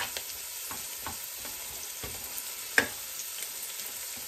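Ground beef frying with a steady sizzle in a nonstick pan while a wooden spatula stirs and breaks it up, scraping and tapping on the pan, with one sharper knock about three seconds in.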